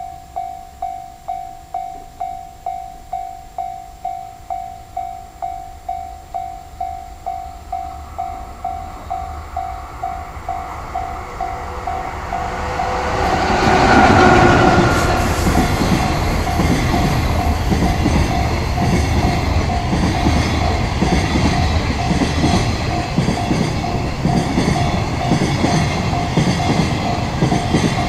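Japanese level-crossing warning bell ringing about twice a second. About 13 s in, an EF66 electric locomotive passes, loudest around 14 s, and then its freight wagons rumble and clatter over the rail joints while the bell keeps ringing underneath.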